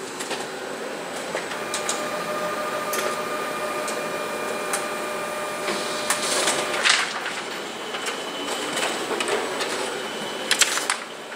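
UTAX colour toner copier printing its second tone curve adjustment test pattern: a steady mechanical whir with a held whine for several seconds, then sharp clicks about seven seconds in and again near the end.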